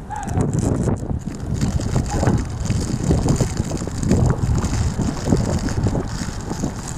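Outdoor city street ambience dominated by wind buffeting the microphone, an uneven, gusty low rumble over a steady hiss of traffic.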